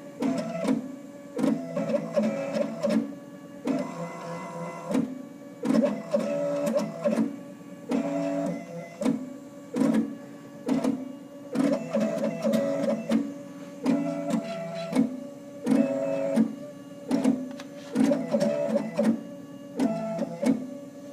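Stepper motors of a benchtop CNC mill driving the table and head through a diamond-drag engraving run: a pitched motor whine that jumps between pitches and swells and drops about once a second as each character is traced.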